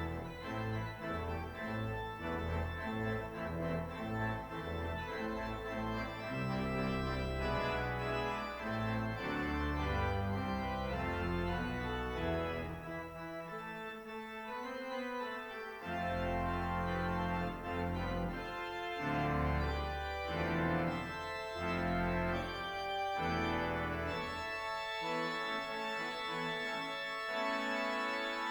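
Organ playing a postlude: sustained chords over a moving bass line.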